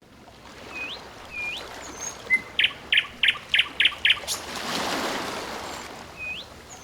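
Wild birds calling: a few short upward-sweeping whistled notes, then a run of about seven sharp repeated notes at roughly three a second. A rushing noise swells up and fades away in the middle.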